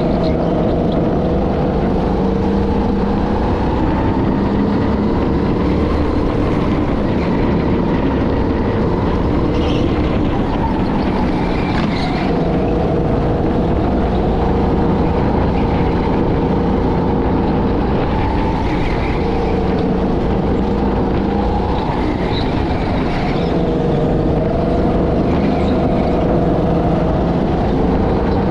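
A go-kart running at speed, heard onboard, its engine pitch dropping and climbing again every few seconds as it brakes for corners and accelerates out of them.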